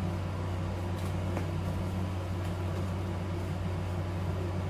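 Steady hum of a room air conditioner running, with a few faint clicks from small leather wallets being handled.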